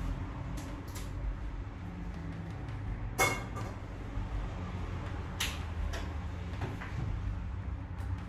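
Kitchen handling sounds: a few sharp knocks and clicks of things being picked up and set down at the counter and cupboard. The loudest comes about three seconds in and another about five and a half seconds in, over a low steady rumble.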